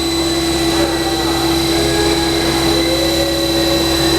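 CNC lathe with an automatic screw-loading feeder running: a steady machine hum with a constant mid-pitched tone and a faint high whine.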